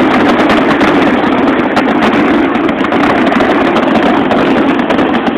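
Fireworks finale barrage: many aerial shells bursting in rapid, overlapping succession. The booms and crackling run together into one continuous loud din with no gaps.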